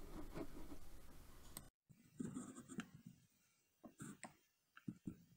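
Faint handling noise as the camera is picked up and moved: soft clicks, rubs and low knocks over a light hiss. The hiss cuts off abruptly about two seconds in, then scattered clicks and knocks follow.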